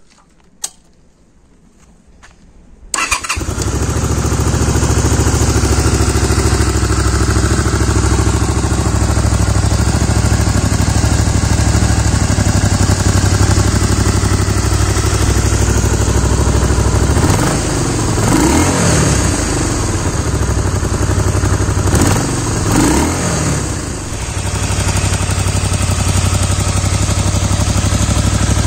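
Honda Magna 250's liquid-cooled V-twin engine starts about three seconds in and runs at a steady idle, its note shifting twice in the second half.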